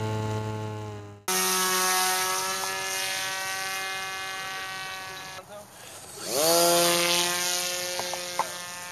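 Electric motor and propeller of a radio-controlled model airplane running with a steady whine. It drops off about five and a half seconds in, then the throttle opens and the pitch sweeps up quickly and holds.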